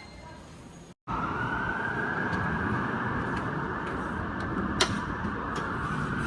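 Dover hydraulic elevator running, heard from inside the cab: a steady rushing noise over a low rumble, which starts abruptly about a second in. There is a single sharp click about five seconds in.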